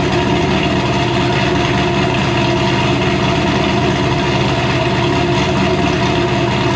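Supercharged 427 cubic-inch V8 of a 2006 Pontiac GTO idling steadily at the tailpipes, still settling after a cold start.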